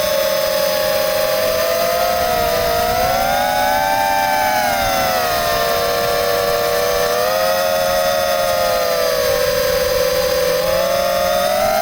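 Electric motors and propellers of an FPV multirotor drone whining in flight, several close tones from the separate motors rising and falling together with the throttle: up about four seconds in, down again, and up once more near the end.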